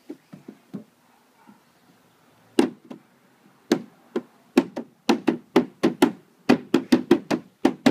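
A toddler knocking on the hollow plastic of a children's play structure: sharp knocks, scattered at first, then a fast run of about four or five a second from around the middle.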